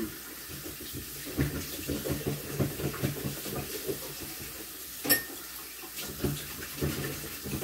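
Kitchen work noises: soft irregular clatter and rustle over a low hum, with one sharp clink about five seconds in.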